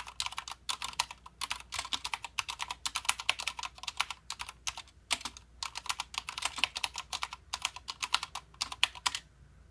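Fast typing on a Mistel MD870 Sleeker mechanical keyboard with Cherry MX Red linear switches: rapid runs of key clacks with short pauses between bursts, stopping about half a second before the end.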